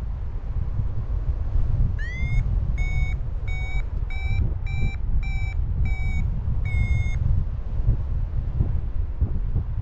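Paragliding variometer sounding its climb tone: a short rising chirp about two seconds in, then a run of short beeps a little under two a second, the last one drawn out, signalling lift in a thermal. Wind rushes on the microphone underneath.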